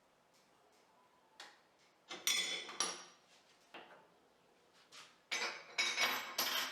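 Dishes and cutlery clinking and clattering as they are handled, in two bursts: one about two seconds in and a longer one near the end, with short ringing after the knocks.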